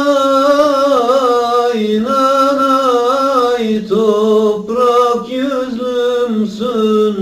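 A man singing a Turkish folk song unaccompanied, drawing out long, ornamented notes in slow phrases with short breaks between them.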